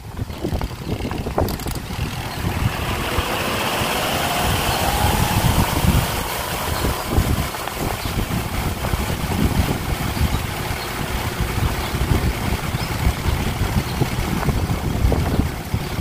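Twin-tub portable washing machine's spin dryer started with its timer knob: the motor whirs up in pitch over a few seconds, then runs steadily, spinning the water out of a wet sheet.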